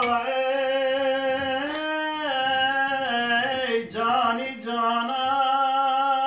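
A man singing a Turkish ilahi (religious hymn) unaccompanied, holding long wavering notes with a brief break about four seconds in.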